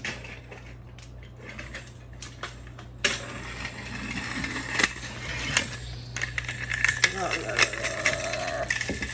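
A thrown plastic toy car clattering and rolling across a hard floor, a dense run of small clicks and rattles that starts suddenly about three seconds in and keeps going.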